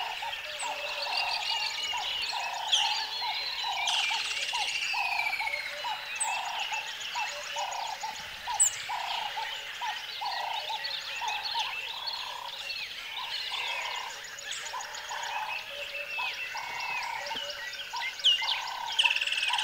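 Nature ambience: a frog chorus of repeated croaking calls, about two a second, with birds chirping and trilling over it.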